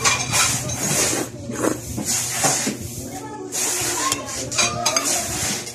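A person slurping saucy noodles in several loud sucking draws, with voices in the background between them.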